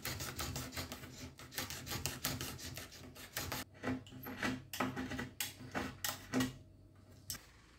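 Utility knife blade scraping along the edge of a laminate countertop, trimming the glued-on edge strip flush in quick repeated strokes, several a second. The scraping stops shortly before the end.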